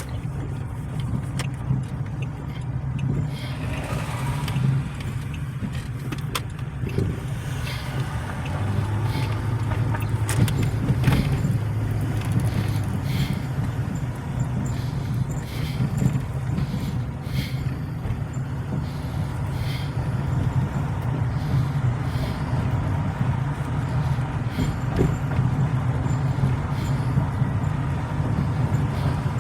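Car engine and road noise heard from inside the cabin while driving: a steady low rumble, with scattered light clicks and rattles.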